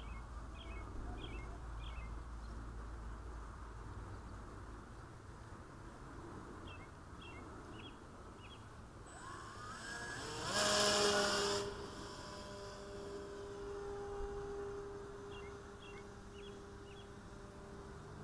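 Electric motor and propeller of a foam RC Spitfire spooling up with a rising whine, a loud rush of propeller noise for about a second as it is hand-launched, then a steady whine fading as the plane flies away. Short bird chirps come three times.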